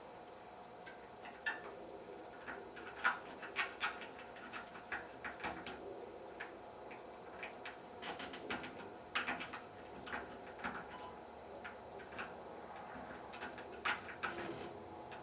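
A pick working inside a deadbolt's pin tumbler lock under tension, giving irregular small metallic clicks and scrapes, several a second at times, as the pins are pushed and set.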